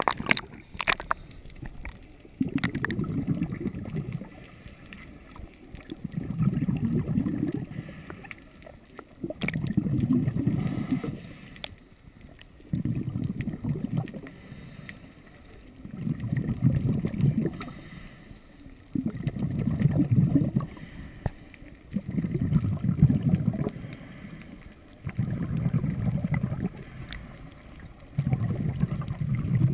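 Scuba diver breathing through a regulator underwater: exhaled bubbles burble in low bursts of a second or two, regularly about every three seconds, with a faint hiss of the inhale between them. A few splashes at the surface at the very start.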